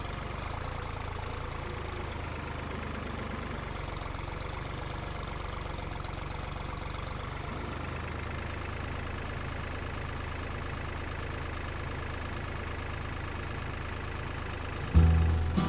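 An engine idling steadily, an even low drone with no change in speed. Near the end, louder music cuts in.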